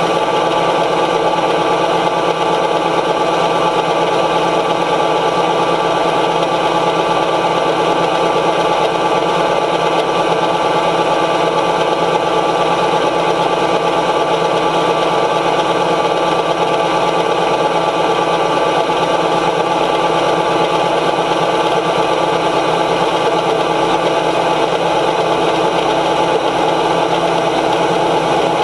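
John Deere 9500 combine running steadily at working speed, a constant mechanical drone of engine and threshing machinery with many steady tones and no change in level.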